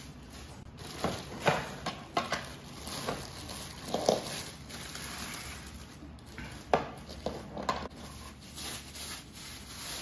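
Plastic packaging rustling as a handheld stick vacuum cleaner is unwrapped, with its plastic body and floor brush clicking and knocking as they are handled and set down on a hard floor; the loudest knocks come about a second and a half, four and nearly seven seconds in.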